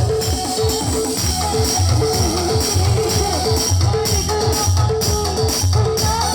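Band music with a steady beat: drums and bass in a repeating pattern, with guitar and tambourine.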